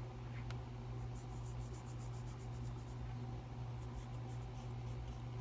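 Paintbrush strokes on thick watercolour paper: soft, quick, scratchy strokes in two short runs, over a steady low hum.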